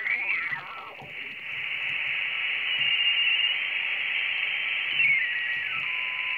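Audio from a homebrew HF-642 SSB transceiver's receiver: a brief snatch of single-sideband voice fades into steady band hiss. A steady whistle follows, and near the end a whistle steps down in pitch.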